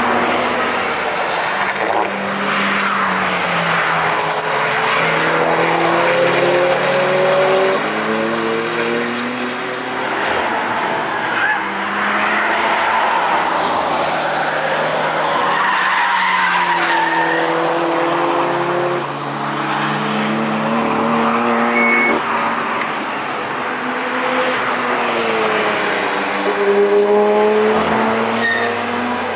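Several sports cars passing one after another on a racetrack. Their engine notes rise and fall in pitch as they come through the corners.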